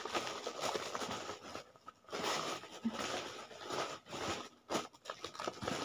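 Plastic medicine bags and packets rustling and crinkling as they are handled and sorted, with many small crackles and clicks and a couple of short pauses.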